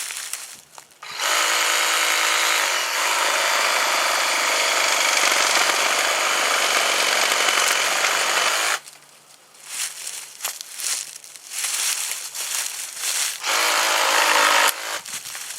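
Ryobi PCL515B 18V cordless reciprocating saw running for about seven and a half seconds, its motor whine giving way to the rasp of the blade sawing through a brush limb. Brush crackles and rustles after it stops, and the saw runs again briefly near the end.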